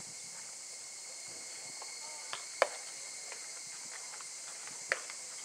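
Steady high-pitched insect drone, with two sharp knocks: a loud one a little over two and a half seconds in and another near five seconds.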